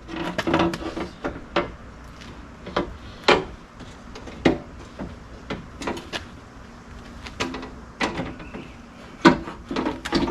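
Irregular metal knocks and clanks as an aluminum door is worked into place on a Honda Talon's hinges, about a dozen sharp hits spread unevenly.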